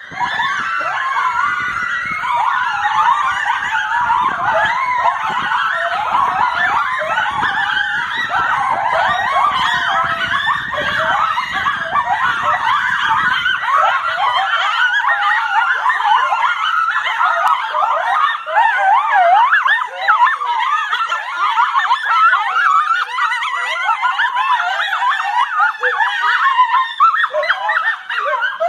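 A pack of coyotes howling and yipping in chorus: many high, wavering calls overlap and rise and fall in pitch continuously. A low rumble underlies the first half and stops about halfway through.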